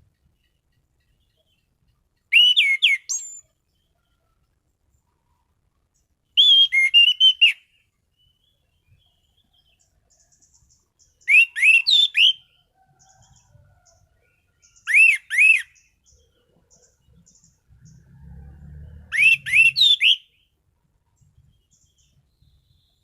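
Anis cendana (orange-banded thrush) singing: five short, loud phrases a few seconds apart, each a quick run of sharp whistled notes that sweep down and up.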